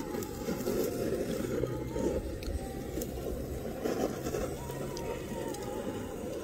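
Handheld butane torch burning steadily, a continuous low rushing flame noise as it is played onto the grate of a small charcoal bucket grill.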